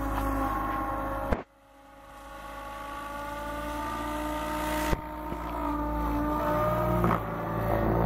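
SAB Goblin 770 electric RC helicopter in flight: a steady whine from its motor and spinning rotors, the pitch shifting a little as it manoeuvres. About a second and a half in, the sound drops out abruptly and swells back up over the next few seconds, with a sharp click just before the five-second mark.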